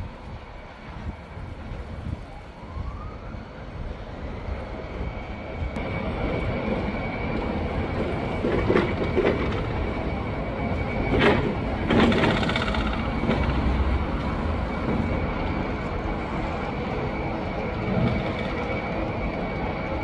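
City street traffic noise: a steady rumble of passing vehicles that swells a few seconds in, with two short, sharper noises near the middle.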